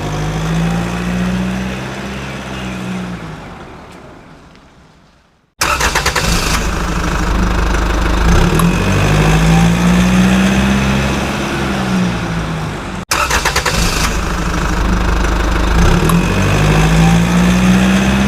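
Motor vehicle engine sound effect, revving up and settling back, repeated three times: the first run fades away, and the next two cut in abruptly.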